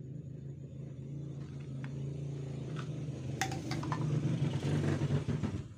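A motor engine running with a steady low hum that grows louder, with a few sharp clicks about three and a half seconds in; it cuts off suddenly near the end.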